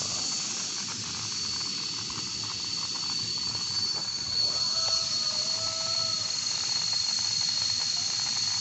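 Steady high-pitched insect drone, a continuous hiss with a thin whining tone on top, with a short two-note tone around the middle.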